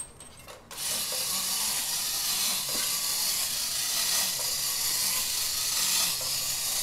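Tin toy robot's mechanism running after being set going, a steady, even hiss that starts abruptly about a second in.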